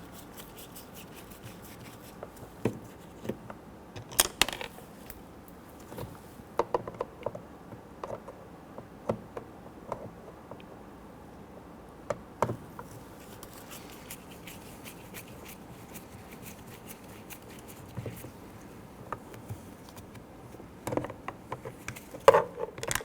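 Phillips screwdriver backing out the screws that hold an interior door handle: scattered small clicks and short scrapes, with a brief cluster of louder clicks and rattles near the end.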